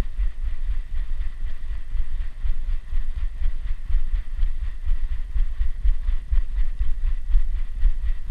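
Thumping, rumbling handling noise from a GoPro Hero4 Black strapped to a dog as it moves, with a quick, even rhythm over a steady faint whine.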